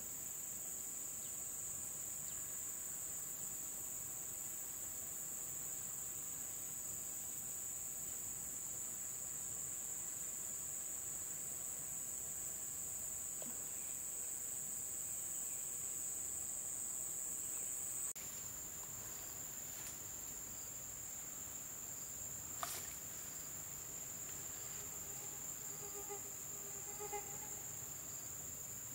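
Steady high-pitched shrilling of a chorus of insects, such as crickets or cicadas, which dips slightly in pitch a little past halfway. A single sharp click about three-quarters of the way through.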